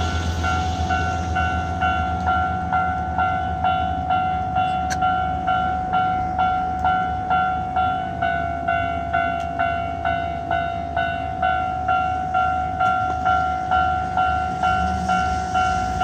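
Japanese railway level-crossing alarm ringing: an electronic two-tone bell repeating steadily at a little under two strikes a second, warning of an approaching train. At a crossing where service was halted by the typhoon, this is taken as a sign that trains may be running again.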